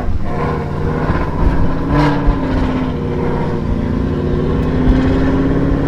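Ford Mustang 5.0 V8 with a ghost cam tune, running through headers, X-pipe and axle-back exhaust at a loud, choppy, uneven idle. The chop comes from the tune raising timing and adding fuel.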